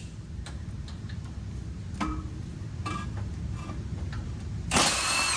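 Scattered light metallic clicks and taps of a tool working on the bump-stop bolts. Near the end comes a short burst of a cordless impact wrench spinning a bolt out.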